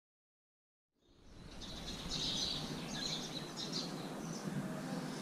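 Dead silence for about a second, then a steady hum of background noise fades in, with small birds chirping again and again over it.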